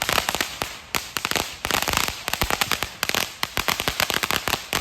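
Firecrackers going off in a rapid, irregular string of sharp pops, many a second, without a pause.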